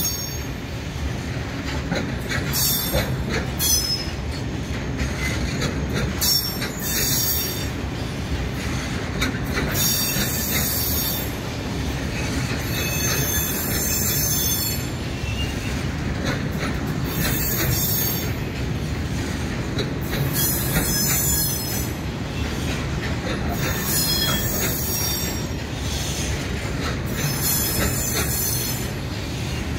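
Freight train wagons rolling past with a steady low rumble, the wheels squealing in high-pitched bursts about every three to four seconds.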